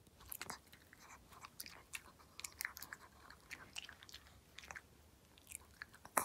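A Maltese dog chewing a treat: faint, irregular crunching clicks, with one sharper click near the end.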